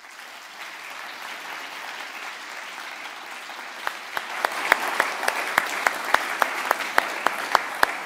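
Audience applauding. From about four seconds in, loud, evenly spaced single claps stand out above it, about three a second.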